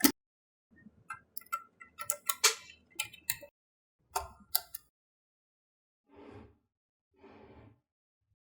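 Small magnetic balls clicking against one another in clusters of sharp ticks, followed by two short, softer rustling sounds near the end.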